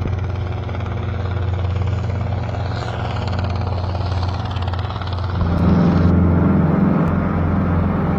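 Helicopter running steadily as it comes in to land, its rotor and engine sound growing louder about five seconds in.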